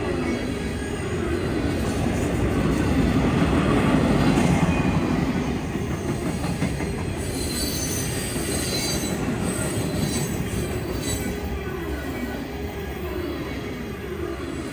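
Loaded freight train of tank cars and covered hoppers rolling past: steel wheels running over the rails with a steady rumble, and high-pitched wheel squeal coming and going about seven to eleven seconds in.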